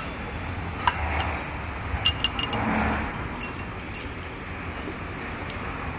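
Tableware clinking: one light clink about a second in, a quick run of ringing clinks around two seconds, then a few scattered clinks, over a steady low background hum.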